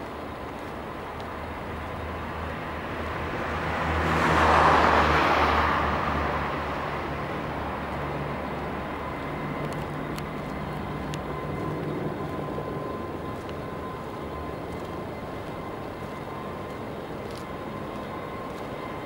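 A passing vehicle rises and fades about four to six seconds in, over a steady low mechanical hum.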